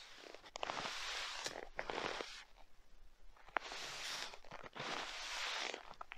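Footsteps crunching through deep snow: several slow, separate crunching steps, with a pause of about a second in the middle.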